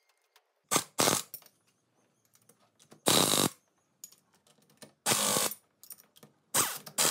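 Air ratchet running in about half a dozen short bursts a second or two apart, driving down the bolts that hold a transfer case's rear disconnect housing, with faint ticks between the bursts.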